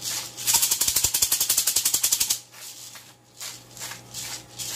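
Disposable peppercorn grinder being twisted by hand over food. It gives a fast burst of loud ratcheting clicks for about two seconds, then slower grinding turns, about three a second.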